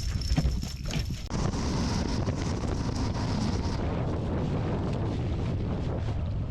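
Wind buffeting the microphone over a steady low rumble from a boat under way, with a few knocks in the first second or so.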